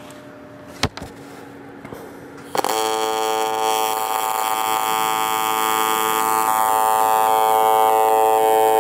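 AC TIG welding arc on aluminum strikes about two and a half seconds in and buzzes steadily. The buzz changes in character partway through as the AC balance is turned from the penetration side toward more cleaning action.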